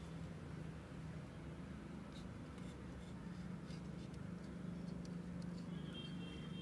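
Utility knife blade scraping the green outer bark off a hibiscus stem in short scratchy strokes, baring the white inner wood for air layering, over a steady low hum.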